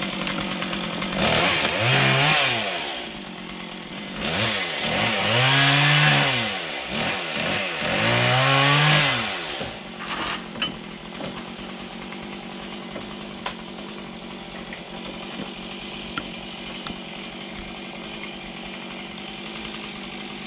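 Stihl two-stroke chainsaw revved three times in quick succession, each surge rising and falling in pitch as it cuts through a tree limb, then settling to a steady idle for the second half.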